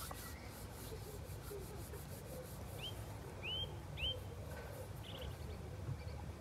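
A bird gives three short rising chirps about halfway through, over a steady low rumble of wind on the microphone by open water.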